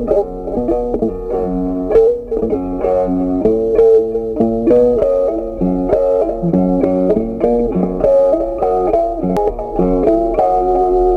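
Background instrumental music: a plucked-string melody of notes changing in quick succession over a bass line.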